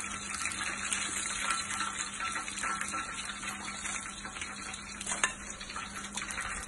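Hot cooking oil sizzling with fine crackles in a frying pan where chicken legs are deep-frying, with one sharp click about five seconds in.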